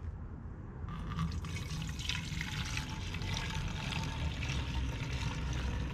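Liquid degreaser pouring from a one-gallon plastic jug into a plastic hand pump sprayer bottle, filling it. The pouring starts about a second in and runs steadily.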